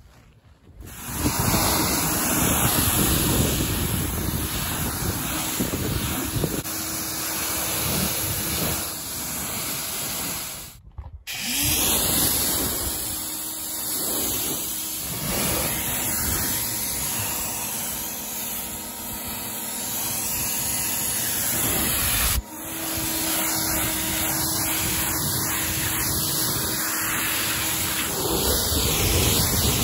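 Ryobi 1,600 PSI electric pressure washer spraying a jet of water onto a car's painted panels to rinse off wash foam: a loud, steady hiss with a faint hum under it, broken by two short gaps.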